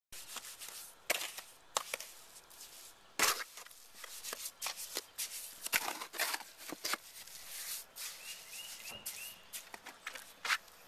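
Steel trowel mixing wet mortar in a mortar tub: irregular scrapes and chopping knocks of the blade through the mortar and against the tub.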